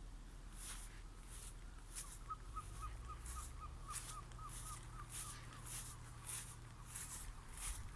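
Footsteps at an even walking pace, each step a short, crisp scuff. From about two seconds in, a bird calls a quick run of short, clipped whistled notes, about five a second, for around three seconds.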